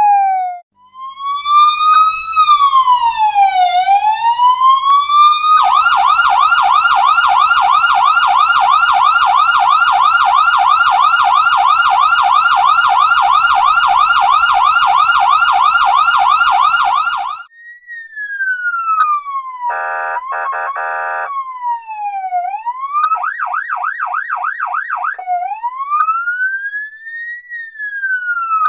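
Electronic police siren cycling through its tones: a slow wail rising and falling, then a long run of rapid yelp lasting about twelve seconds. After a brief break it comes back quieter, alternating wail with short bursts of yelp and a steady buzzing horn tone.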